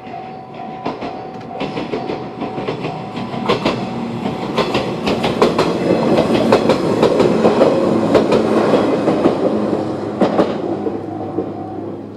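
Jōshin Electric Railway 700 series electric train passing over a level crossing, its wheels clacking over the rail joints. The sound builds to its loudest about halfway through and then fades. Under it the crossing's electronic warning bell (JR Central-type sound) rings and stops shortly before the end.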